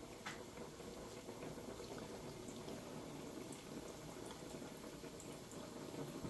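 Hot cooking oil sizzling faintly and steadily as pastries deep-fry in it, with scattered small crackles and pops.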